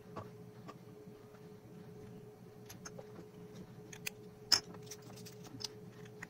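Small screwdriver clicking and scraping on the screws of an LED bulb's LED board, in scattered ticks with one sharper click about four and a half seconds in. A faint steady hum runs underneath.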